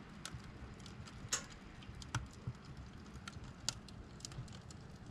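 Firewood crackling in the firebox of a Narvi 16 black wood-burning sauna stove: irregular sharp pops, the loudest about a second and a half in and near four seconds, over a low rumble from the fire.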